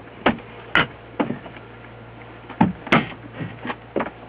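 About eight irregular knocks and clatters of things being handled in a wooden cabinet, over a steady low hum.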